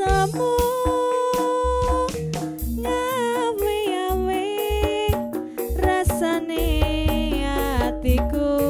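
Background music: an Indonesian song with a wavering melody line over percussion, with a steady bass coming in about two-thirds of the way through.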